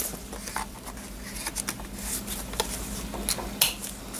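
Paper being handled as a handmade paper pocket is fitted into a personal ring planner: light rustling and a scattering of small, sharp taps and clicks.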